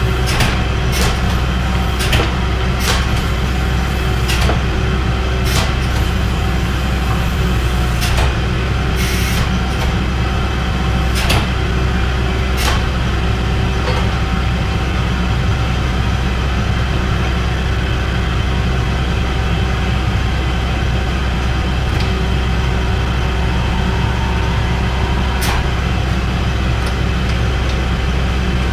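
Hydraulic forging press's pump motor running with a steady low hum, with sharp clicks about once a second for the first dozen seconds and only a few after that.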